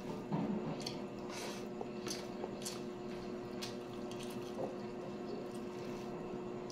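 Close-up eating sounds: wet chewing and small mouth clicks and smacks, with fingers pressing and gathering corn rice and cabbage on a plate, as scattered irregular ticks. A steady low hum runs underneath.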